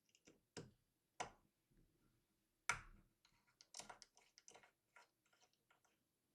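Faint, irregular clicks and taps from small hardware being handled, the loudest about two and a half seconds in.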